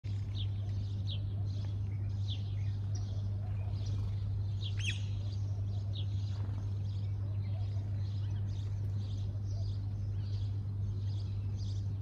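House sparrows chirping over and over, with one louder call about five seconds in, over a steady low hum.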